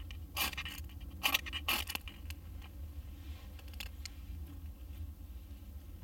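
Three quick rasping strikes in the first two seconds as a fire is struck into a bundle of wood shavings, then soft rustling of the tinder as it catches a small flame.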